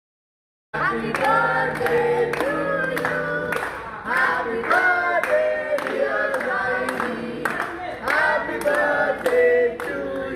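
Voices singing together over a regular beat of hand claps, starting about a second in after a moment of silence.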